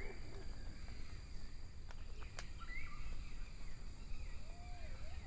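Forest ambience: wild birds give short gliding calls through the middle and a lower arching call near the end, over a steady high insect drone. Two faint sharp clicks come about two seconds in.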